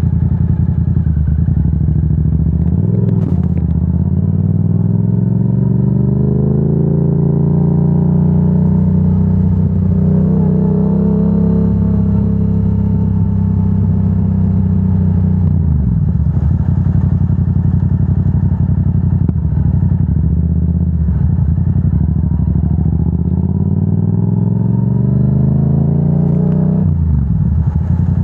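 Yamaha R7's parallel-twin engine running through a Yoshimura AT2 full exhaust while riding. Its pitch drops sharply about three seconds in, then climbs steadily as it pulls, falls again midway and dips twice more before rising and dropping near the end.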